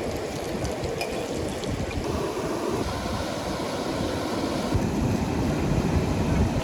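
A river rushing steadily, with low gusts of wind on the microphone that grow a little stronger near the end.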